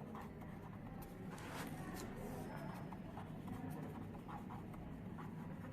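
Faint scratching strokes of handwriting with a pen or marker, over a steady low hum of room tone.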